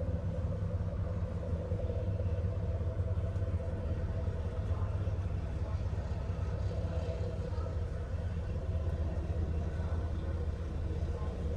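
Ferry engine running steadily, heard aboard as an even low rumble with a fainter hum above it.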